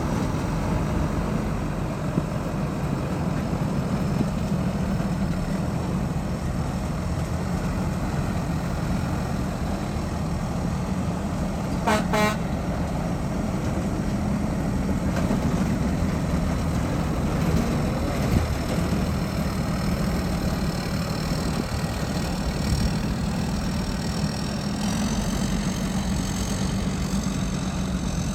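Engines of large rice combine harvesters running steadily. About halfway through, a horn gives two short toots.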